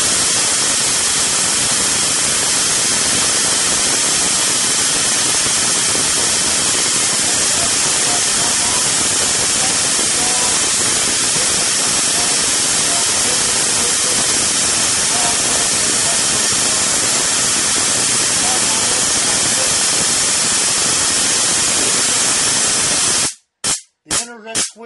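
Loud, continuous crackling buzz from a high-voltage spark gap arcing steadily, driven by a pulse-width-modulated 10,000-volt intensifier circuit. Near the end it cuts off suddenly, then returns in a few short bursts as the main pulse is switched off and on.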